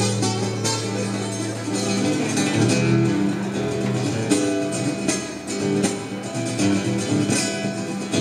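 Guitar music in a flamenco style: plucked notes running over held low notes.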